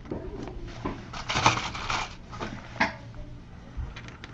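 Small hard parts being handled: a light switch and rivets clicking and rattling against each other and the work surface, with a rustling stretch about a second in.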